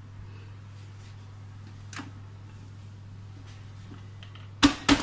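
A low steady hum, with a faint click about two seconds in, then three sharp knocks in quick succession near the end as hard kitchen items are handled and knocked together.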